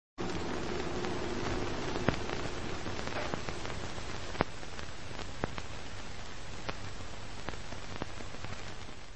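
Old-film surface noise: a steady crackling hiss with scattered sharp clicks and pops over a low hum. It starts suddenly just after the start and fades out at the end.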